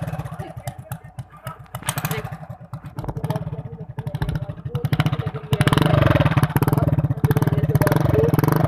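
Motorcycle engine running with a black pipe pulled off the engine side, a home trick meant to make it sound like a Royal Enfield Bullet; its exhaust beats in quick, even pulses. About two-thirds of the way in it is throttled up and held louder.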